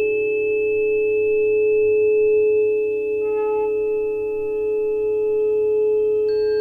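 Several steady pure tones held together at a constant level. A brief cluster of higher tones sounds about three seconds in, and new higher tones join near the end.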